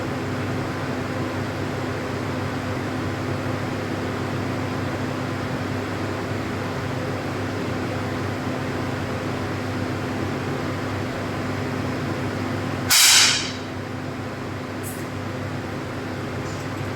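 A 10 m air pistol firing a single shot about 13 seconds in: one sharp pop with a brief hiss of air, the loudest sound here. Under it runs a steady ventilation fan hum with a constant low tone, and two faint clicks follow the shot.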